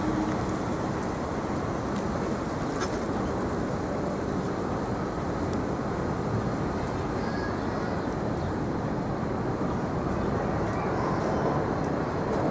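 Steady city street noise with traffic going by and no single sound standing out.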